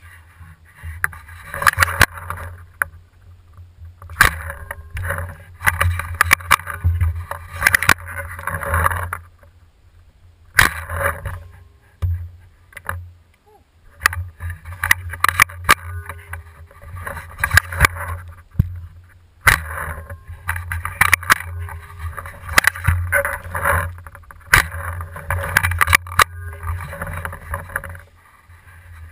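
Handling noise on a camera mounted on an Airrow bow: rubbing and rustling in irregular bursts, several lasting seconds, with scattered sharp knocks and clicks over a steady low hum.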